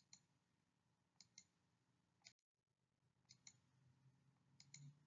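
Near silence: faint room tone with a few soft clicks, mostly in close pairs, about four times.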